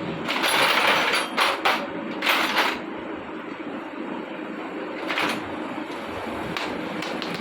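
Metal tools and engine parts clattering and scraping while a motorcycle engine is being taken apart. There are several short bursts in the first three seconds and another about five seconds in, over a steady background noise.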